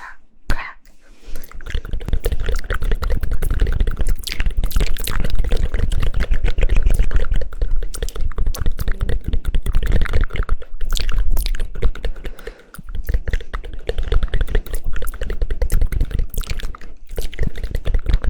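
Fast, dense hand clapping close to an ASMR microphone, a rapid run of sharp claps with deep thuds beneath them, easing briefly about two-thirds of the way through and then picking up again.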